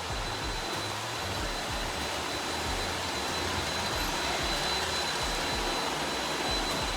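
Robot vacuum cleaner running: a steady whir with a thin, high, constant whine and an uneven low rumble.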